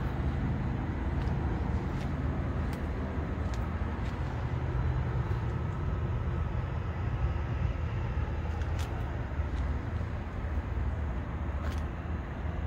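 Steady low rumble of an idling diesel semi-truck engine, with a few faint clicks now and then.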